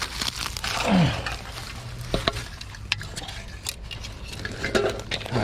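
Rustling with scattered light clicks and clinks from litter and glass bottles being handled.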